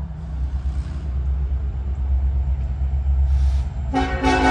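Two EMD diesel-electric locomotives, an SD70ACE leading an SD70AH, approaching running light with a steady low engine rumble. About four seconds in the lead unit's air horn starts a toot.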